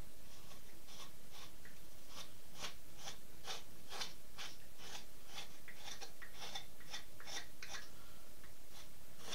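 Carving knife paring a pine decoy head in a steady run of short slicing cuts, about two to three a second, as the beak and head are shaped by hand.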